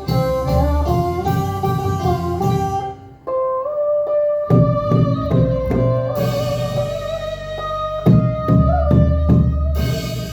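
Instrumental music: a sustained melody line held over plucked-string chords and a steady low beat, with a brief drop-out about three seconds in.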